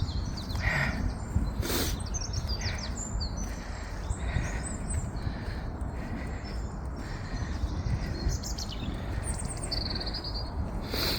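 Small songbirds singing and chirping, with many short high calls and a brief rapid trill near the end, over a low steady outdoor background.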